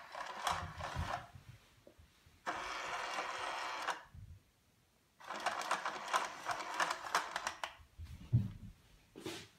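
Two stretches of mechanical whirring and rattling like a small motor, the first steady and about a second and a half long, the second about two and a half seconds and full of quick clicks, with a low thump near the end.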